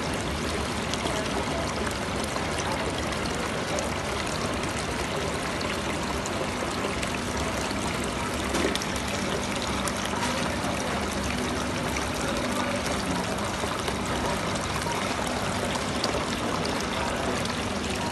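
Small artificial-rock decorative fountain: water pouring in a thin sheet from its spout and splashing into the basin below, a steady trickling with a faint steady hum underneath.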